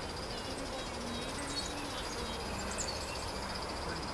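Outdoor ambience: insects trill steadily at a high pitch, with a few brief bird chirps over a low, even background hiss.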